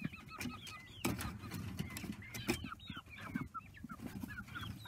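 A flock of Cornish Rock broiler chickens clucking and peeping, with many short calls overlapping throughout and a few sharp clicks among them.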